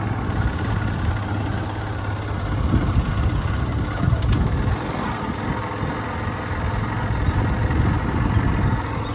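Motorcycle engine running at a steady low speed while the bike is ridden along, with wind and road noise. The bike is ridden without the throttle, so the engine holds one steady pace.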